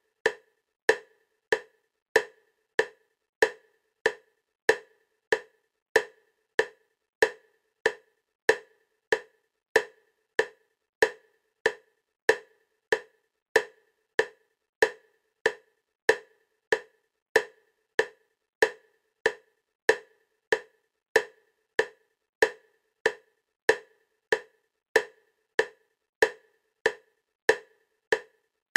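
EMDR bilateral-stimulation clicks: short, wood-block-like clicks alternating side to side at a steady 96 beats per minute, about one every 0.6 seconds.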